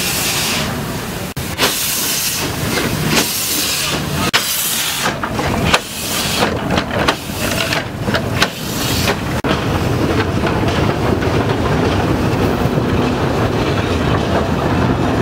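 Narrow-gauge steam locomotive passing close by: bursts of steam hissing about a second apart, growing shorter and closer together. From about ten seconds in they give way to the steady rumble and clatter of loaded wagons rolling over the rails.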